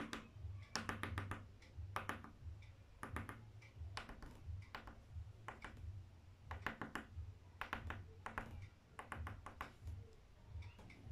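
Quick taps of a drawing stick dotting star marks onto paper, in clusters of a few rapid ticks about once a second.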